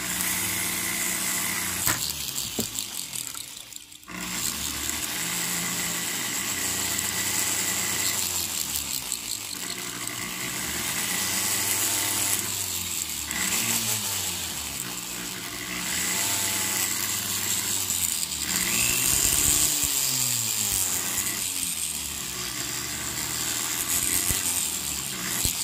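Flex shaft rotary tool spinning a felt buffing wheel charged with Zam polishing compound against a ring. It runs steadily with its pitch wavering up and down, and dips briefly about four seconds in.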